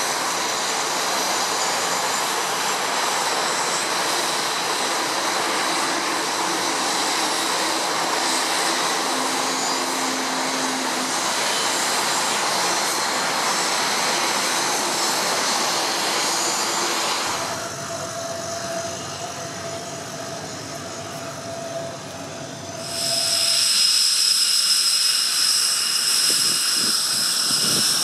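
Twin turboprop engines of an RAF Beechcraft King Air running steadily as it taxis. After a quieter stretch, a jet's loud high-pitched whine takes over in the last few seconds: a Panavia Tornado taxiing.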